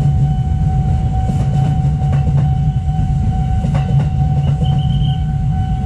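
KRL commuter electric train rolling past at close range: a steady, loud rumble with wheels clacking over rail joints, and a steady high tone underneath.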